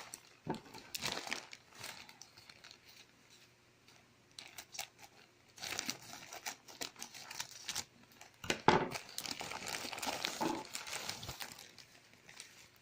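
Packaging being handled and unwrapped: irregular bursts of crinkling and rustling, with a quieter stretch about three to five seconds in.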